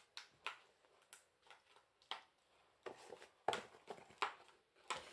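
Scattered light knocks and rustles of cardboard and paper being handled on a wooden table. They come at irregular intervals and crowd together more from about three seconds in, when the egg carton is picked up.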